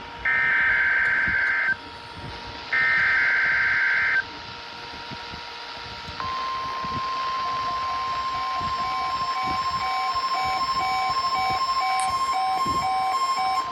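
NOAA Weather Radio test alert: two data bursts of harsh, buzzing multi-tone chirps, about a second and a half each, then about six seconds in the steady 1050 Hz warning alarm tone starts and holds. A fainter pulsing beep runs underneath the tone.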